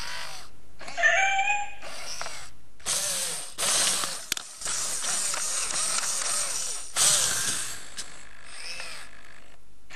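i-Cybie robot dog's leg motors and plastic gears whirring and grinding in long stretches as it walks and shifts its stance. A short electronic meow-like call sounds about a second in.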